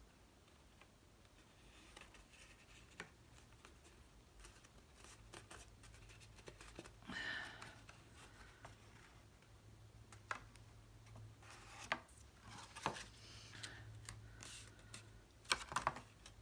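Cardstock pieces being handled, folded and pressed together while gluing tabs: scattered small clicks and taps, with a short papery rustle about seven seconds in and a run of clicks near the end.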